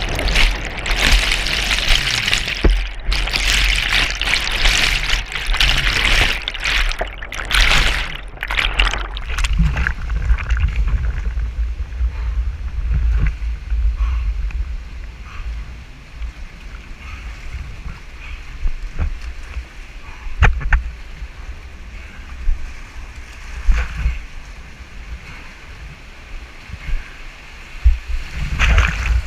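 Fast whitewater of a river at high flood flow rushing and splashing right at the microphone, loud and churning for about the first ten seconds with brief cut-outs. It then turns quieter and muffled as the camera sits at or in the water line, with a low rumble and a few sharp knocks.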